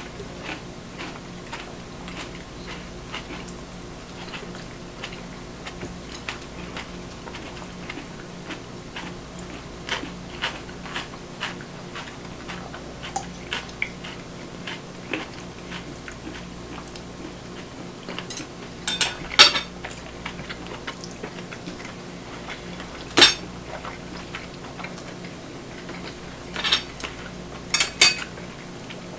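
Kitchen utensils and dishes clinking and tapping while food is prepared: many light clicks, with a few louder clattering knocks in the second half, over a steady low hum.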